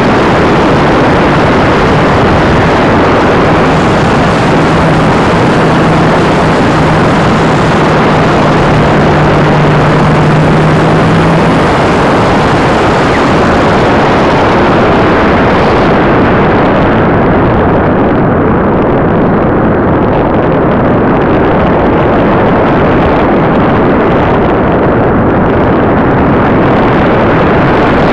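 Loud, steady wind rush and airflow noise on the microphone of an onboard camera riding on an RC glider in flight. A steady low hum sounds for several seconds near the start, and the high hiss softens about two thirds of the way through.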